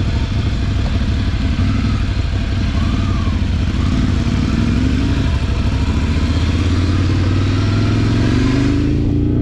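Ducati Scrambler Desert Sled's 803 cc air-cooled L-twin running under way, its pitch climbing steadily in the second half as the bike accelerates. A broad hiss sits over the engine and falls away near the end.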